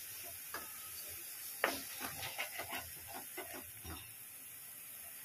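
Wooden spatula stirring thick masala in a metal kadhai. There is a sharp knock against the pan about one and a half seconds in, then a quick run of scraping strokes for about two seconds, over a faint sizzle of the frying paste.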